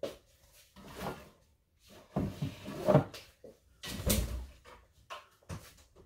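Refrigerator door being pulled open, with a series of knocks and clunks; the loudest, deepest clunk comes about four seconds in.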